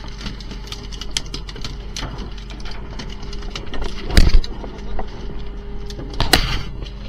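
A fishing boat's engine running steadily underneath, with scattered knocks and clatter of gear being handled on deck. A loud thump comes about four seconds in and another near the end.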